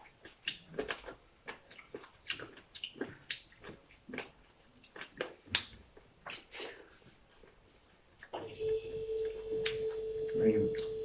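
Close-up eating sounds: irregular wet mouth smacks and clicks of chewing mutton curry and rice. About eight seconds in, a steady hum starts.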